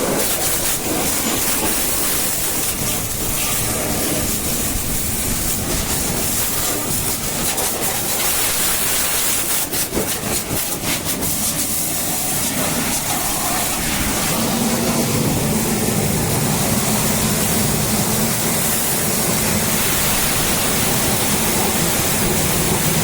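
High-pressure water jet spraying onto a backhoe loader, a steady hiss with brief crackling spatter, joined about two-thirds through by a low steady hum.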